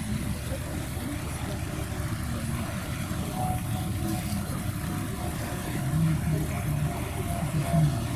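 River cruise ship's engines running with a steady low rumble and the churn of its propeller wash as the ship gets under way out of a lock chamber; a faint thin whine joins the rumble about halfway through.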